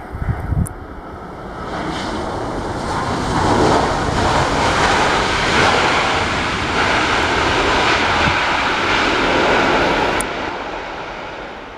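An airliner passing low overhead: its engine noise swells over a few seconds, holds loud, then fades away near the end.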